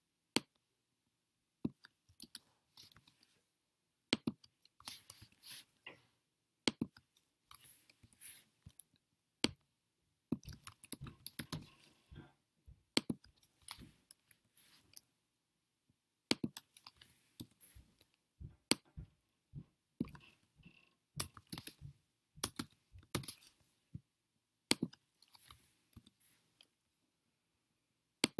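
Computer keyboard typing and clicks, in irregular short runs with brief pauses between them.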